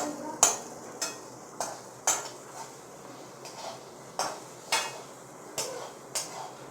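A spoon stirring and scraping in a frying pan, knocking against the pan every half second or so, over a faint sizzle of chopped garlic, ginger and green chillies frying in oil.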